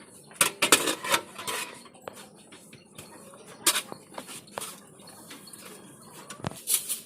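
Irregular sharp clinks and knocks of hard objects striking each other: a quick cluster in the first second and a half, then a few single strikes spread through the rest.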